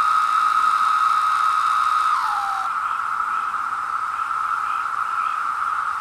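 Chorus of male periodical cicadas singing in a steady, loud drone. About two seconds in, one nearby cicada's call ends with a falling slur in pitch, while the chorus carries on.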